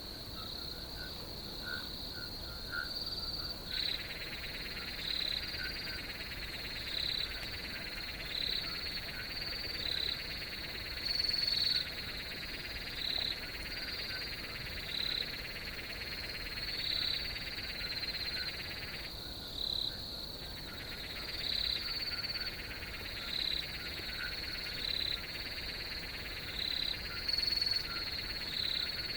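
Night chorus of crickets: a steady high trill with short chirps repeating about once a second, over a second, lower buzzing chorus that comes in after a few seconds and drops out for a moment past the middle.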